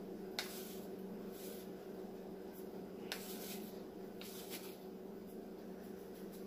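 Plastic measuring spoon scooping dried parsley flakes from a spice jar and tipping them into a glass bowl: several brief soft rustles and two light clicks of the spoon, over a faint steady hum.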